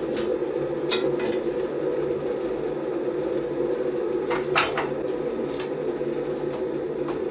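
Steady hum of a running kitchen appliance, with a few clicks and knocks of a utensil against a cooking pot as steak is turned over in it; the sharpest knock comes a little past halfway.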